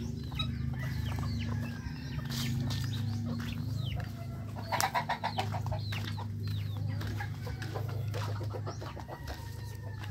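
Backyard chickens clucking, with a short, rapid, louder cackle about halfway through, over a steady low hum.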